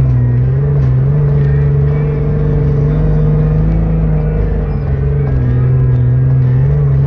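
Sand rail engine running under load at high, fairly steady revs, heard from on board, its pitch dipping briefly a few times as the throttle eases and picks back up.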